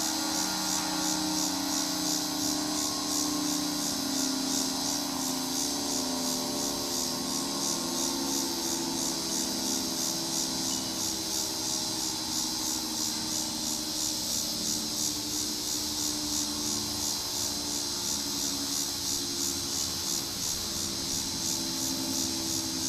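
A steady, evenly pulsing high buzz of insects, with a low steady hum beneath it.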